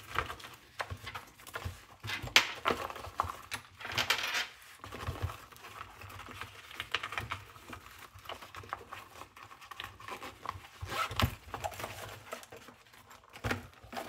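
Packing a wireless microphone kit into its zippered hard-shell carrying case: irregular rustling and scraping of the case's fabric lining and straps, with scattered small clicks and knocks as cables and devices are tucked in.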